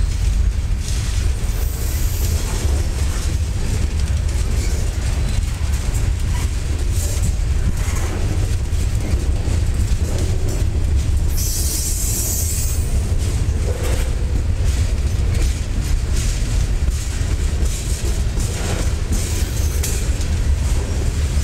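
Freight train cars rolling past: a steady heavy rumble of steel wheels on rail with rattling and clicks at the joints. Short high wheel squeals break in now and then, the longest about halfway through.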